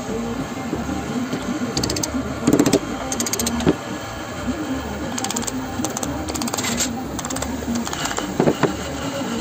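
Several short knocks and clicks as a wooden block and metal fittings are handled and fitted together on a workbench, over a steady background.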